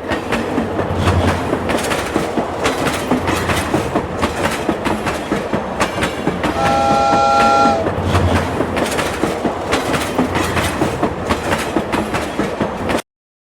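Train running: a steady rhythmic clatter of wheels over the rails, with a multi-tone horn sounding for about a second in the middle. The sound cuts off suddenly near the end.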